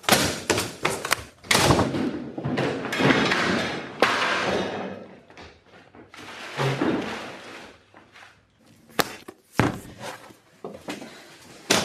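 A run of knocks and thuds, with two sharp bangs about nine seconds in and another near the end.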